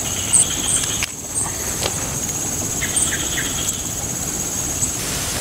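Pond-side ambience with a steady high-pitched insect drone, a few short high chirps and a couple of faint ticks.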